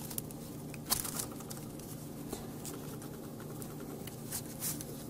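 Small clicks and light scraping of a metal pick and tweezers working the plastic lens-mount latches of a disassembled Casio Exilim EX-Z32 compact camera. The sharpest click comes about a second in, with a few lighter ticks after it and two more near the end, over a faint steady hum.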